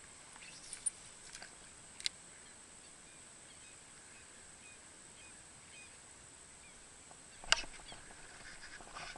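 Quiet open-air ambience with faint, scattered bird calls and a steady thin high-pitched whine. A few sharp clicks break it, the loudest about seven and a half seconds in.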